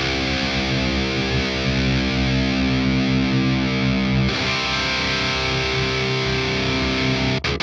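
Distorted electric guitar, boosted by a BOSS OD-200 pedal into an overdriven amp, holding a ringing chord; a new chord is struck about four seconds in and rings until it cuts off sharply near the end as the pedal's noise gate closes.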